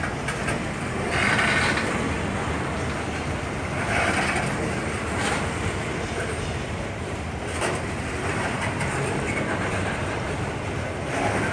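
Freight train of covered hopper wagons rolling past at close range, a steady rumble of wheels on rail. A creaking squeal rises out of it every few seconds.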